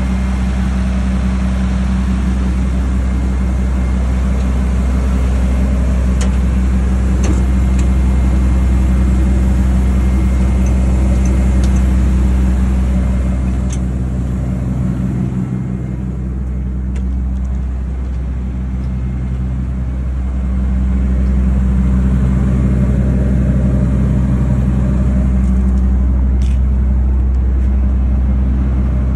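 A Caterpillar 320DL excavator's six-cylinder diesel engine runs at a steady speed with a deep, even hum and the cooling fan turning. The sound is slightly quieter for a few seconds about halfway through.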